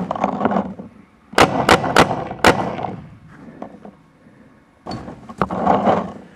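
Four sharp paintball marker shots, about a third of a second apart, between one and a half and two and a half seconds in.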